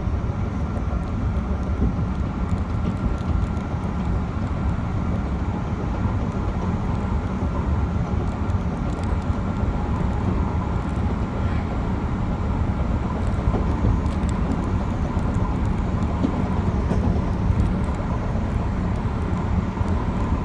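Metro-North commuter train running along the track, a steady low rumble heard from inside the front car, with a faint steady high tone over it.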